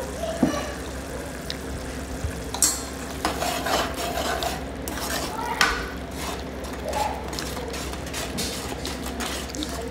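Steel ladle stirring and scraping a thick spice masala around a steel kadai, with irregular metal-on-metal scrapes and clinks over a light sizzle of the paste frying in oil. The just-added powdered spices are being cooked into the masala.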